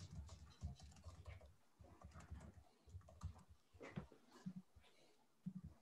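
Faint computer keyboard typing: irregular keystrokes in short runs, stopping near the end.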